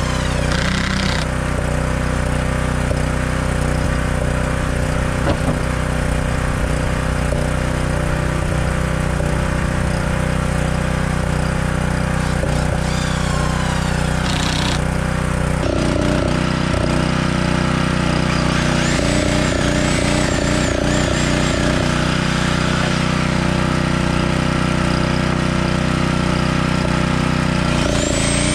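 A portable generator's engine running steadily underneath, while a cordless DeWalt impact driver drives screws into pine boards in several short bursts of motor whine and hammering. Near the end a corded reciprocating saw starts up with a sharply rising whine.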